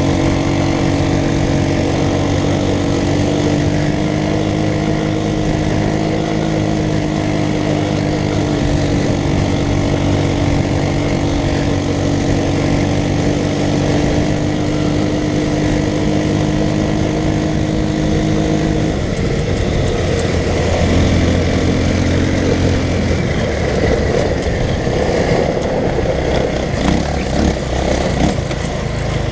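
Off-road go-kart's small engine running at a steady speed, its note holding almost level; about two-thirds of the way through the steady note breaks up into a rougher, changing sound as the speed varies.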